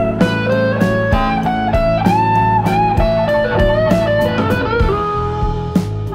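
Background music: an electric guitar playing a bluesy melody with bent notes over a steady drum beat.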